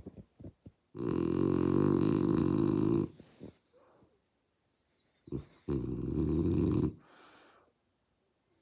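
Bulldog snoring in its sleep: a long, loud rasping snore of about two seconds starting a second in, then a short snort and a second, shorter snore about halfway through.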